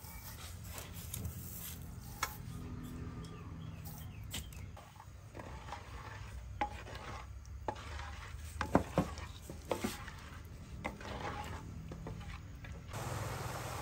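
A cooking utensil stirring and scraping in a pot, clinking against its side now and then, with a cluster of sharp clinks about nine seconds in, over a low sizzle of cooking food.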